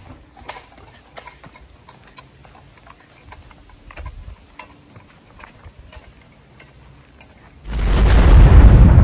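Faint scattered clicks and knocks, then, near the end, an explosion: a sudden, very loud deep boom that rumbles on and slowly dies away.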